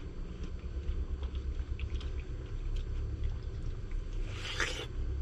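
A dog chewing watermelon, with small wet clicks and crunches over a steady low hum, and a brief louder rustle near the end.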